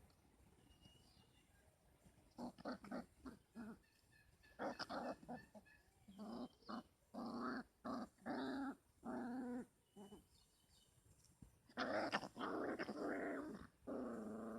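Dog barking and growling in several runs of calls, some short and some drawn out for up to about a second, loudest over the last few seconds.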